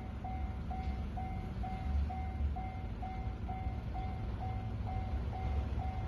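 Japanese railway level crossing's electronic warning bell ringing, a steady repeated ding about twice a second, signalling an approaching train. A low rumble runs underneath.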